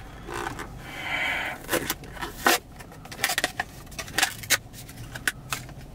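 Plastic scoop scraping and prying at the sealed foil liner of a pre-workout powder tub after its pull tab broke: a run of short scratches and clicks.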